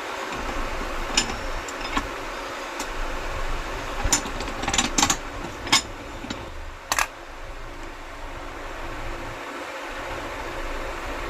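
Several sharp metallic clicks and clinks, loosely spaced, with a cluster about four seconds in, over a steady mechanical hum.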